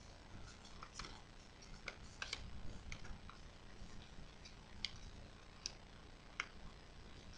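Origami paper being folded and creased by hand: faint scattered crackles and ticks of the stiff paper, with a few sharper clicks in the second half.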